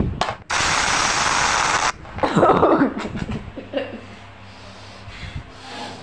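Handling noise from a phone's microphone: a hand rubbing over it gives a loud, even hiss that starts and stops abruptly, lasting about a second and a half. A shorter, rougher burst follows about two seconds in.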